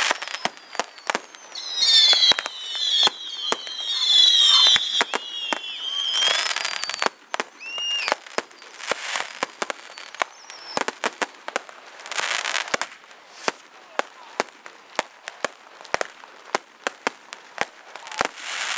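Fireworks display: a fast run of sharp bangs and pops, with several whistling fireworks screaming together in the first few seconds and short bursts of hiss later on.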